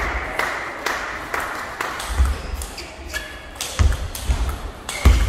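Table tennis ball in a rally, clicking sharply off the rackets and the table about twice a second. Low thuds come in among the clicks, the loudest near the end.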